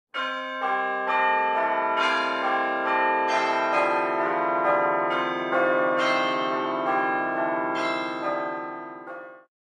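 Bells ringing a run of struck notes, about two a second, each note ringing on under the next, fading out near the end.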